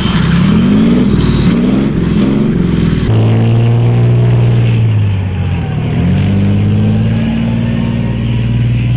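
Tank engine sound effect: a heavy engine revving, its pitch swinging up and down several times in the first three seconds, then holding steady, dropping briefly about five seconds in and climbing back.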